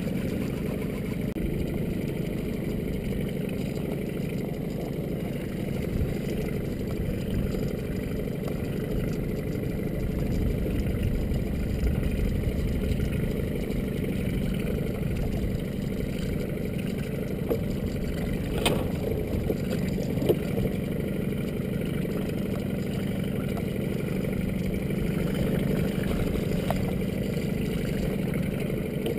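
A boat's engine idling with a steady low hum, with a single sharp click about two-thirds of the way in.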